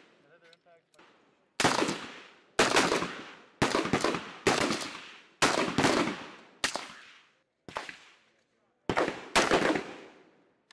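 Rifle fire from M4-type 5.56 mm carbines on a firing range: nine single shots, about one a second, with two coming close together near the end. Each shot is sharp and loud with a short echoing tail.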